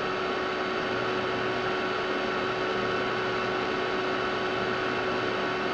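Steady hum and hiss of an Amiga 4000's hard drive and power supply running, with a constant whine underneath.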